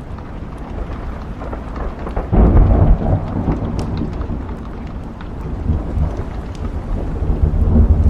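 Thunderstorm ambience: steady rain with a low rumble of thunder that swells suddenly about two seconds in and builds again near the end, with scattered small sharp crackles.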